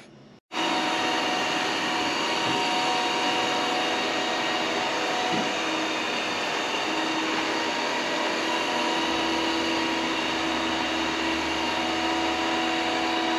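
Robot vacuum cleaner running as it moves across a hard parquet floor: a steady hiss with a few fixed whining motor tones, and a low hum joining about nine seconds in.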